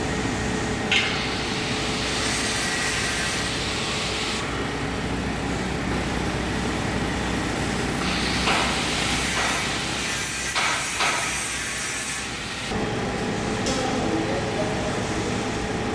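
Wood grain coating machine running in a workshop: a steady mechanical noise with a faint hum, a few sharp knocks, and two stretches of high hiss.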